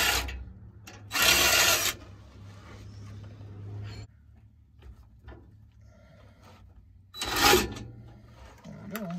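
DeWalt cordless power tool run in short bursts of about a second, backing out an exhaust header bolt: one burst about a second in and another near the end, with small metal knocks between.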